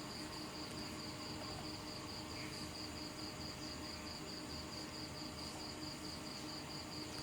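Cricket chirping steadily in a high, even pulse of about five chirps a second, over a faint low hum.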